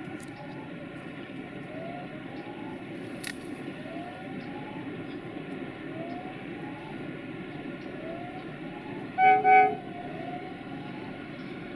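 A level-crossing warning signal sounds a rising electronic chirp about once a second, over the steady rumble of an approaching freight train hauled by Electroputere 060-DA (LDE2100) diesel locomotives. About nine seconds in, the locomotive's horn gives two short blasts, the loudest sound.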